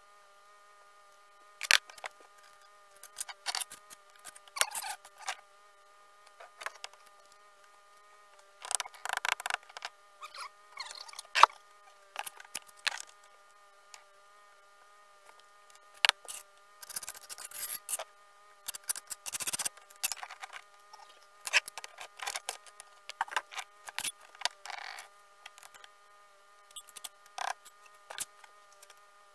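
Bricklaying by hand: a steel trowel scraping and clinking against mortar and old bricks, and bricks being set and tapped into place, in irregular sharp taps and short scrapes. A steady faint whine runs underneath.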